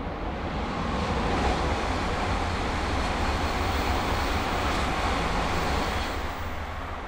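The ALFA-X (E956) experimental Shinkansen passing at speed while accelerating: a rushing train noise that swells about a second in, holds loud as the cars go by, and falls away after about six seconds.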